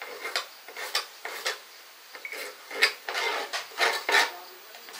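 Kitchen knife chopping tomatoes on a plastic cutting board: irregular sharp taps, about two a second, a few louder strokes near the third and fourth seconds.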